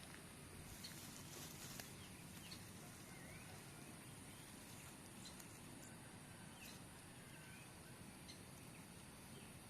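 Faint forest ambience: a steady high-pitched drone of insects, with scattered short bird chirps and brief whistled notes.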